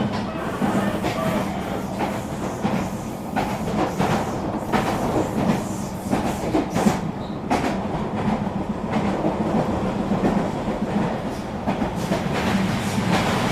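Eurobahn RE3 regional electric train running along the track: a steady rolling rumble with irregular clicks and clacks of the wheels over the rails.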